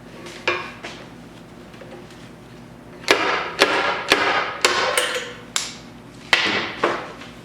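Hammer blows on the steel quarter valance while a dent is pulled out with a stud welder's pin puller: about ten sharp knocks, each with a short ring. Two come near the start and eight follow in quick succession from about three seconds in.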